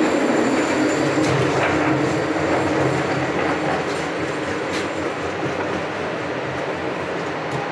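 A Scarborough RT (TTC Line 3) train of UTDC ICTS Mark I cars running along the track: a steady rumble of wheels on rail with a few sharp clicks, slowly getting quieter.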